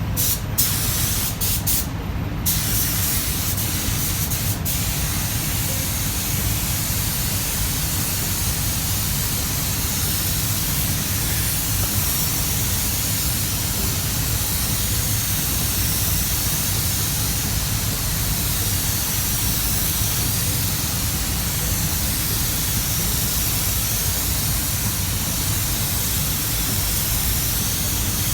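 Compressed-air spray gun spraying with a steady hiss, over a low rumble, with a few brief breaks in the hiss near the start.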